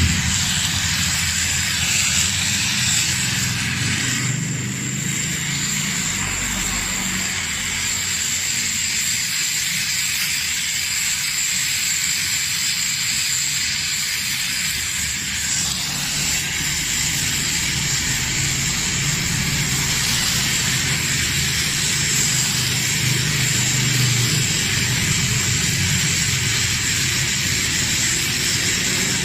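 LPG gas welding torch flame burning steadily with a hiss and a low rumble, melting aluminium filler rod into a cracked engine casting.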